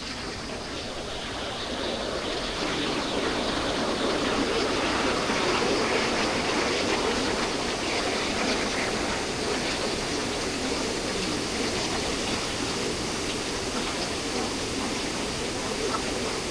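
Waterfall with water rushing steadily, getting louder over the first couple of seconds and then holding even.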